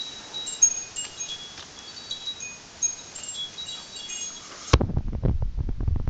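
Wind chimes tinkling, with scattered high ringing tones. About three-quarters of the way through, a louder low rumbling with knocks takes over on the phone's microphone, drowning the chimes.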